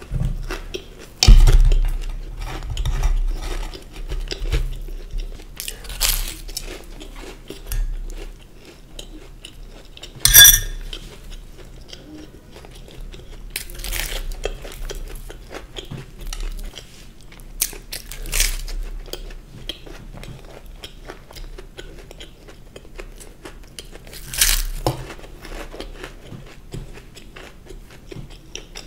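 Close-miked eating: crunchy bites into a fried samosa and steady chewing, with a few sharp crisp crunches. A loud clatter of a plate about a second in.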